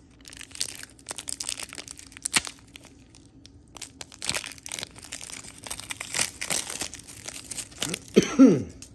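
Shiny foil trading-card pack wrappers crinkling and tearing as the packs are handled and ripped open, with a sharp crack about two and a half seconds in. Near the end there is a short vocal sound with a falling pitch, louder than the rustling.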